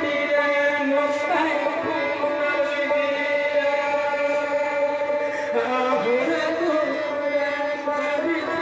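Santali folk song: a man singing through a microphone and loudspeaker, with long held notes, over a two-headed barrel drum.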